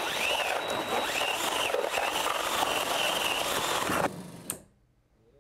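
Cordless drill driving a 4-inch hole saw through exterior wood siding, the motor whining and wavering in pitch under load as the saw cuts. It stops about four seconds in.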